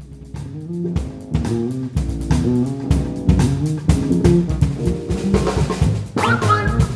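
Live band playing an instrumental groove on drum kit and electric basses, with busy bass lines over the drums. The music cuts in at once from silence, and a higher melodic line joins near the end.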